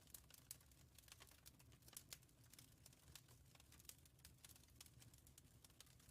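Fire crackling in a fireplace: quick, irregular pops and snaps over a low rumble.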